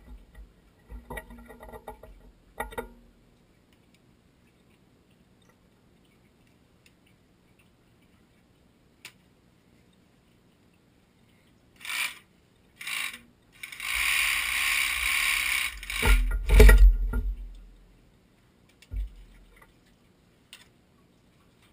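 Wrench and metal pipe fittings clinking and rattling during work on well-pump plumbing. About two thirds of the way through there is a hiss lasting about two seconds, followed by a few heavy knocks.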